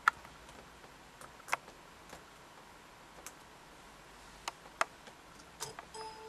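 Sparse single clicks of a laptop being worked by hand, about seven in six seconds, with a short faint tone near the end.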